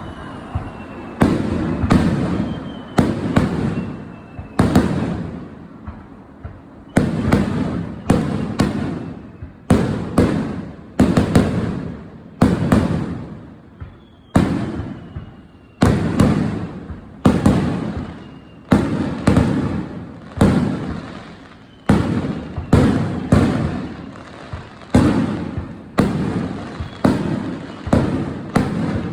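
Aerial fireworks bursting in quick succession, about one loud bang a second, each followed by a rolling echo that dies away. A faint falling whistle is heard between some bursts.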